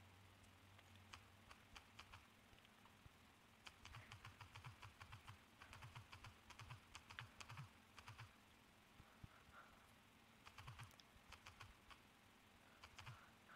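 Faint, rapid clicks of typing on a smartphone's on-screen keyboard, coming in several bursts of a second or a few seconds with pauses between.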